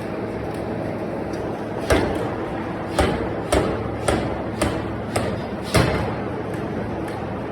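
Bearing-ring forging machinery: seven sharp metal clanks with short ringing tails, about half a second apart from about two seconds in, over a steady machine hum.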